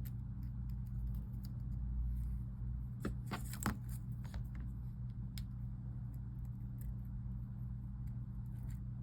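Light clicks and taps of small phone parts and tools being handled on a workbench, with a short cluster of sharper clicks about three and a half seconds in, over a steady electrical hum.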